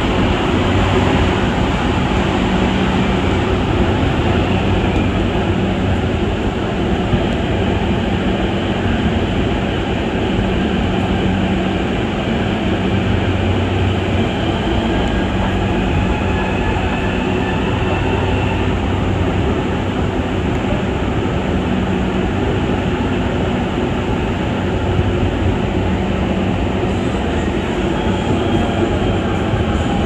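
Mexico City Metro Line 2 rubber-tyred train running between stations, heard on board: a steady loud rumble with a low hum. A faint whine rises in pitch about halfway through.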